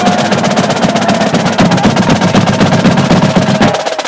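Marching drumline, with tenor drums, Pearl marching snares and bass drums, playing a fast, dense cadence of rapid strokes that thins briefly near the end.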